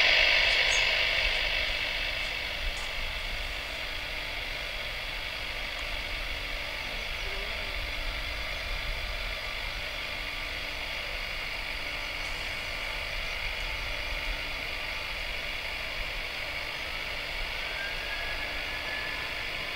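Steady hiss and whine of a distant Airbus A320-232's IAE V2500 jet engines at low power, with the aircraft still short of its takeoff roll. It starts abruptly, is loudest at first and then settles, and a faint rising whine comes in near the end.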